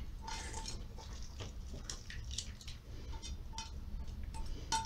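Faint scraping and scattered light taps of a utensil on a metal bowl and a steel pot as chopped onion is scraped into the pot, over a low steady hum.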